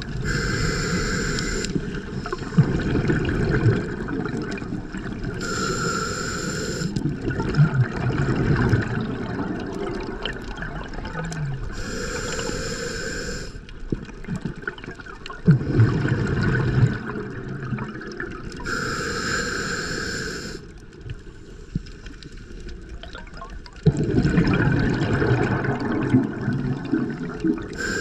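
Scuba diver breathing through a regulator underwater: a hiss on each inhale, about every six to seven seconds, alternating with the bubbling rumble of exhaled air.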